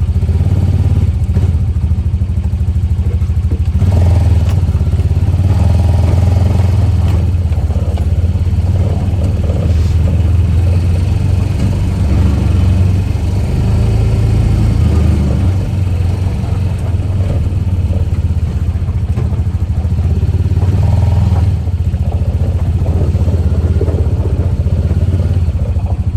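Honda Pioneer 700 side-by-side under way, its single-cylinder engine running steadily.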